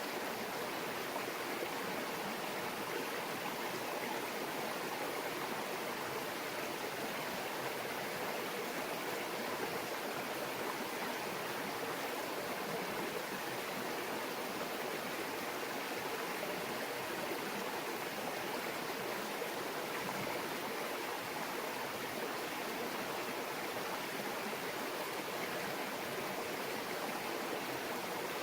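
Shallow stream babbling steadily over stones, an even continuous rush of water with no breaks.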